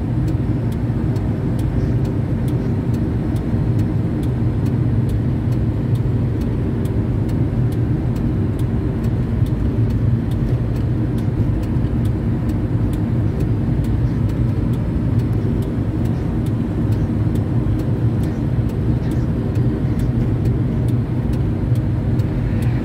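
Liebherr 1090-4 mobile crane driving at highway speed: its engine runs in a steady, unchanging low drone, mixed with road and tyre noise.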